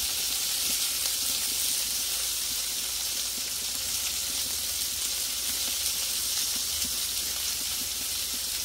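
Burger patties sizzling in their own grease on a Blackstone flat-top griddle: a steady frying hiss.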